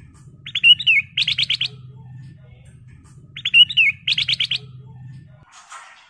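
Ruby-throated bulbul singing the same short phrase twice, about three seconds apart: a few quick slurred whistled notes and then a rapid run of about six repeated notes. A low steady hum sits underneath and stops shortly before the end, followed by a brief rustle.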